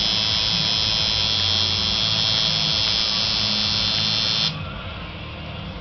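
Electric tattoo machine buzzing steadily, cutting off suddenly about four and a half seconds in, with music playing underneath.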